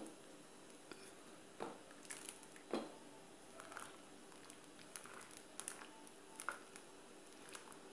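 Wooden spoon stirring a thick, thickening chocolate pudding mixture in a stainless steel pot: faint, irregular squelching and scraping, with a few short knocks of the spoon against the pot, the loudest a little under three seconds in.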